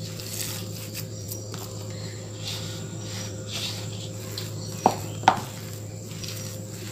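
Hand working rice flour and ground rice paste together in a steel bowl: soft, repeated rustling, squishing strokes, with two sharp clicks against the bowl about five seconds in. A steady low hum runs underneath.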